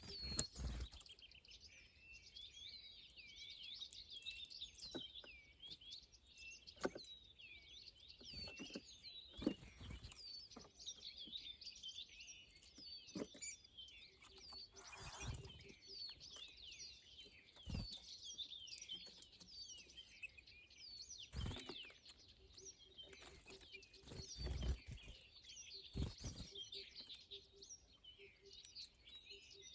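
A group of small birds chirping continuously, many calls overlapping, with a scattered soft knock every few seconds.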